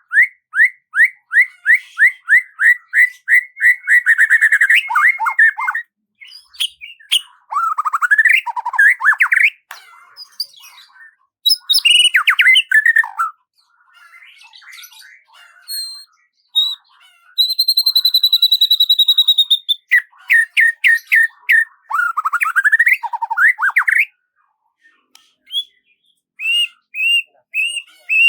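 A songbird singing in phrases of rapid repeated chirps and fast trills, with short pauses between phrases and one long steady whistled note about two-thirds of the way in.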